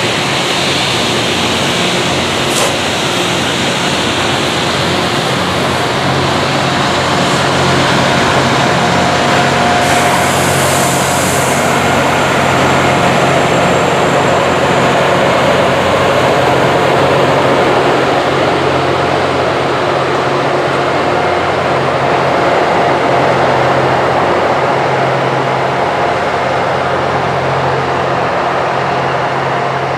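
A Loram rail grinder train running close by: a loud, steady diesel hum under a dense rumbling noise, with a brief high hiss about ten seconds in.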